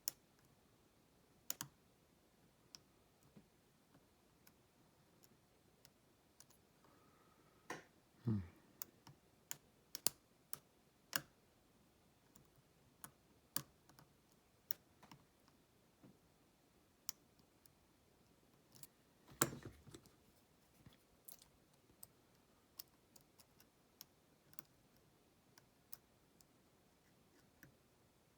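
Sparse small metallic clicks of a lock pick and tension wrench working the pin stacks of a padlock, with two louder knocks about 8 seconds in and again about 19 seconds in.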